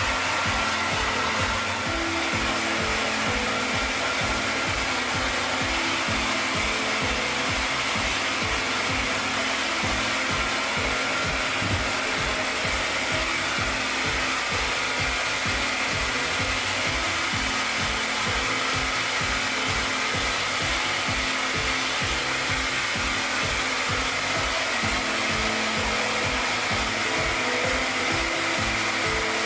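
Hair dryer blowing steadily, drying a Jack Russell Terrier's coat after a shampoo.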